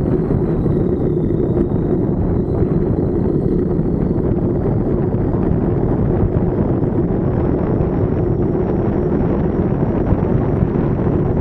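Wind buffeting the microphone during a fast downhill ride: a steady, loud low rumble that drowns out the vibration of the wheels, with a faint steady hum beneath it.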